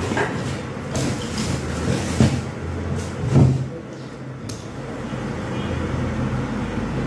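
Glass electric kettle, its replacement switch on, heating water toward the boil: a steady low rumble, with a few light clicks and knocks, the loudest about two and three and a half seconds in, from small parts being handled.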